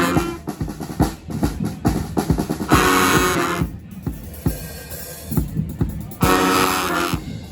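Brass band playing live: a drum groove of bass drum and snare, with the horns coming in for two short chords, about three seconds in and again near the end.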